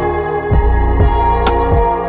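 Background music: ambient electronic track with sustained synth tones, a pulsing bass and a sharp percussive hit about one and a half seconds in.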